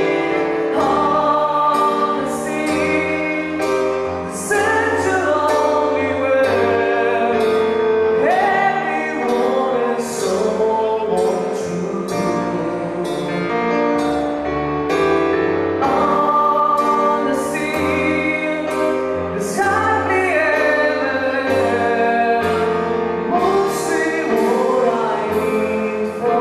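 A live band playing a slow ballad, with a singing voice over the band.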